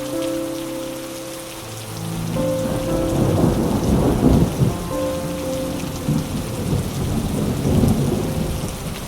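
Steady rain falling, with a long rolling rumble of thunder that swells about two seconds in and fades toward the end. Soft held music notes sound underneath.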